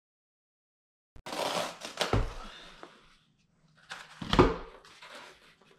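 Cardboard mailer box handled on a tabletop: rustling and scraping, with two hard thumps about two seconds apart, the second the louder.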